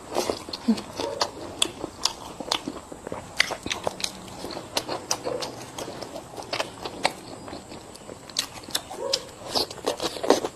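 Close-up biting and chewing of crunchy food: many irregular crisp crunches, several a second.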